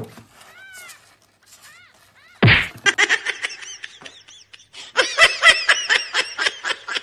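A kitten mewing with a few short, high-pitched mews. A sudden loud burst comes about two and a half seconds in. In the second half a person laughs in rapid repeated bursts.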